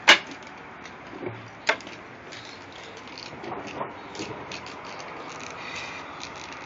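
Two sharp knocks about a second and a half apart, the first the loudest, then a run of light clicks and rattles.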